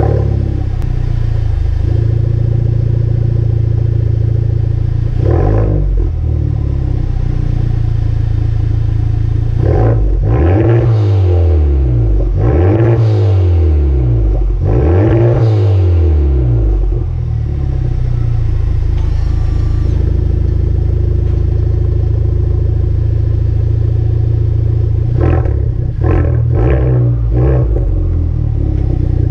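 2017 Honda Civic Type R's turbocharged 2.0-litre four-cylinder exhaust through an aFe Takeda cat-back with triple tips, idling and being revved. There is a short rev about five seconds in, a run of about four revs, each rising and falling, in the middle, then several quick throttle blips near the end.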